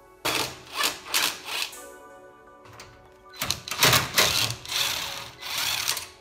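Background music with steady sustained tones, overlaid by sharp, irregular clicks and clatters.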